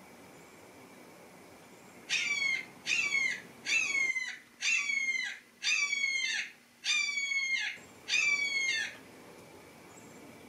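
A house cat meowing seven times in a row, each meow a short, high, falling cry, about one a second.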